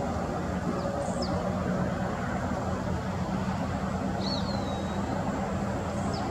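Airbus A320 jet airliner making a steady, distant rumble with a low hum as it lands and rolls out on the runway. Short high whistled bird calls sound over it about a second in, around four seconds in and near the end.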